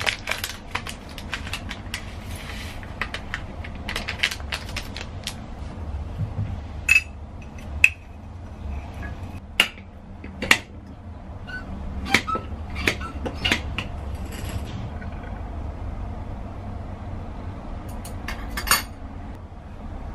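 Glass and metal tea things clinking and clicking as they are handled and set down on a stone kitchen counter: a glass tea press, a metal strainer, a red mug. A quick cluster of clacks near the end comes as the swing-top glass jar's clasp is undone.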